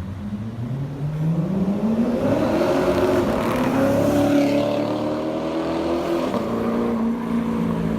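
Chevrolet Corvette C7 V8 running through a custom titanium full exhaust system, the exhaust note climbing in pitch over a couple of seconds as the car accelerates, then dropping back a little about six seconds in and holding steady.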